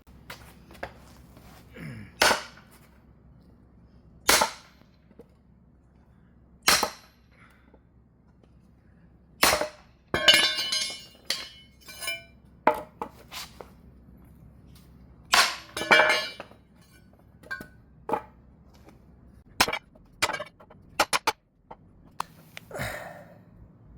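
Hammer blows on the bent metal arm of a wake-boat wedge, straightening it: about a dozen sharp strikes at uneven intervals, a few of them ringing briefly.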